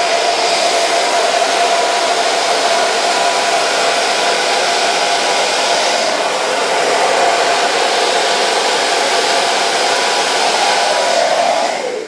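Babyliss 'The Pro' red hair dryer with an AC motor running steadily on its hottest heat setting and first speed, a loud rush of air with a steady hum under it. It is switched off right at the end.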